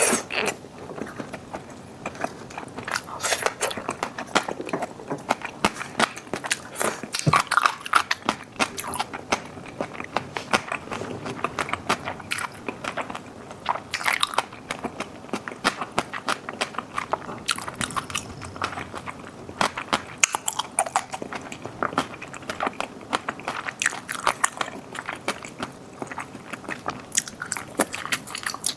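A person chewing and biting into a bossam meal of boiled pork with crisp fresh cabbage kimchi and raw oysters. Crunches and wet mouth clicks come thick and irregular throughout.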